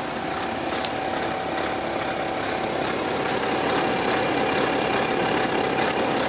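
BMW X3 30d's N57 3.0-litre inline-six diesel idling, with a periodic rattle from the timing chain. The mechanic diagnoses a stretched timing chain slapping against its chain guide, a problem of the tensioner or the chain itself.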